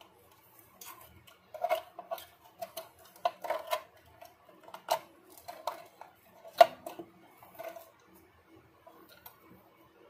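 Irregular metallic clinks, taps and knocks from handling the parts of a sealing machine and its circuit board, with one sharper knock about six and a half seconds in.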